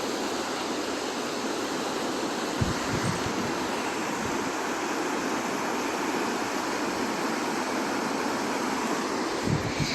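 Flood-swollen creek rushing past at high current, a steady, even rush of water.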